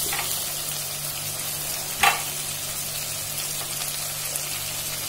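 Vegetables and tomatoes sizzling as they fry in an open pressure cooker, stirred with a spatula, with one sharp clack of the spatula against the pot about two seconds in.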